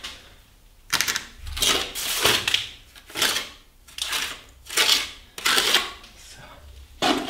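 Hand trowel scraping soft plaster onto the masonry of a door reveal in a series of short strokes, about one a second, laying on a very thin bonding coat.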